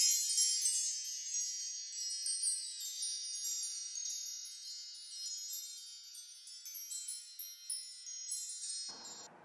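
Wind chimes ringing: a high, shimmering cascade of many overlapping notes, loudest at the start and slowly fading, cut off sharply near the end.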